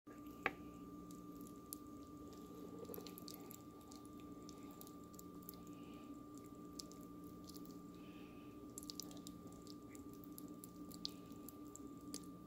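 Freshly drained potato pasta in a colander giving faint, scattered small wet clicks and ticks as it settles and drips, with one sharper click about half a second in. A steady low hum runs underneath.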